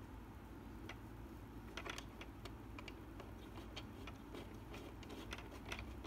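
Faint, irregular light clicks and ticks from a jukebox-shaped alarm clock, coming a few per second through the middle of the stretch over a quiet room.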